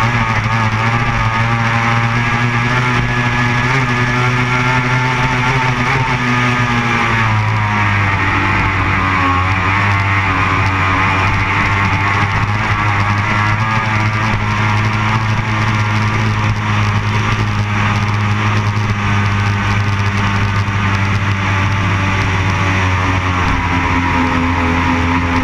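A racing powerboat's engine running steadily at speed. The engine note shifts about seven seconds in and wavers as the hull rides the water. Guitar-led background music plays over it.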